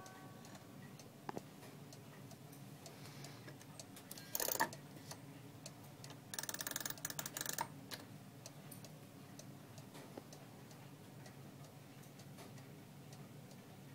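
Steady ticking of a weight-driven carved cuckoo clock's movement. A short, sharp clack comes about four and a half seconds in, and a rattling burst lasting about a second comes between six and seven and a half seconds in.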